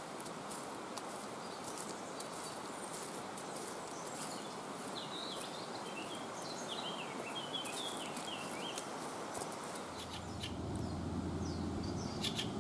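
Woodland ambience: a steady rushing hiss with light crunching steps on a leaf-strewn path, and a small bird chirping a quick run of short calls in the middle. About ten seconds in, a steady low hum comes in.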